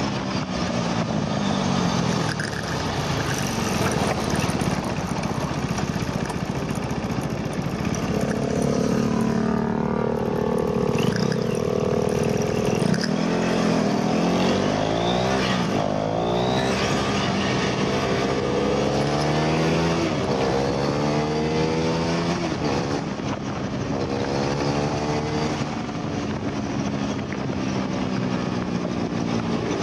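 KTM RC390's single-cylinder engine on the track, heard from the bike over heavy wind rush. It winds down as the bike slows into a corner, then accelerates hard through the gears, the pitch rising repeatedly and dropping back at each upshift.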